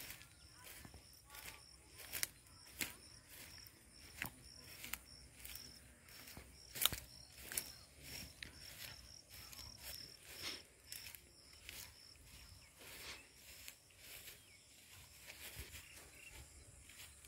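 Footsteps on a grassy dirt track at an even walking pace, about one and a half steps a second. Behind them insects chirp in a high, steady, evenly pulsed trill.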